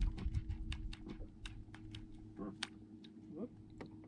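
Irregular light clicks and ticks, several a second, from a baitcasting rod and reel being handled while a lure snagged in rocks is jiggled to pop it loose, over a steady low hum.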